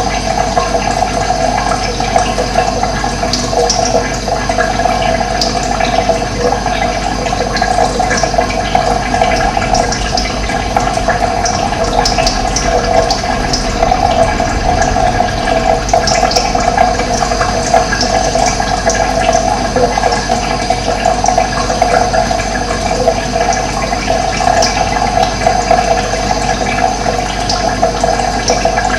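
Running water with a steady, unbroken rush.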